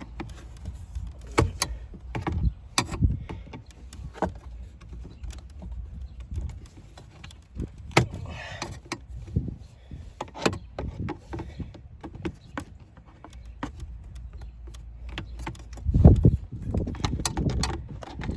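Irregular clicks, knocks and scraping as a plastic dashboard trim piece is pried at with a tool, with a louder low thump about 16 seconds in.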